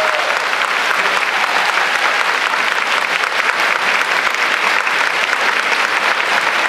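Audience applauding steadily, many hands clapping in a continuous patter, right after a barbershop chorus finishes its song.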